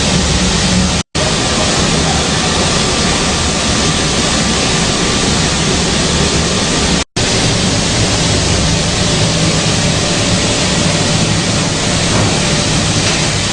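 Combined wheat flour milling machine running under power, a loud, steady, dense noise with a low hum beneath it. The sound cuts off sharply for an instant about one second in and again about seven seconds in.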